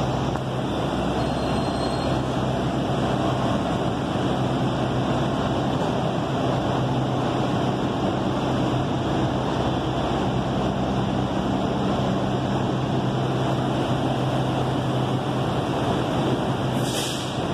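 Delhi Metro train standing at an underground platform: a steady mechanical hum with a low tone. A short hiss comes near the end.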